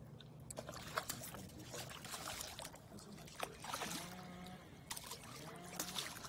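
A hooked crappie splashing at the water's surface as it is reeled up beside the boat: a run of short, irregular splashes and flicks over a faint low hum.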